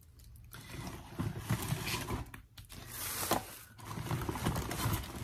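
A shopping bag rustling as it is handled and moved aside, with a few light knocks.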